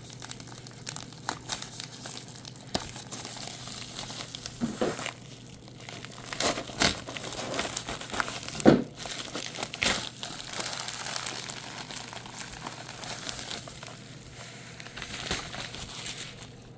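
Packing material crinkling and rustling as a shipping box is unpacked by hand, with a few sharp knocks and clicks; the loudest comes about halfway through.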